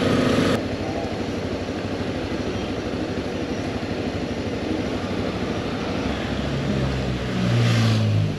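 Motorcycle riding in slow city traffic: engine running under steady road and wind noise. A pitched drone cuts off suddenly about half a second in, and a deeper engine drone swells near the end.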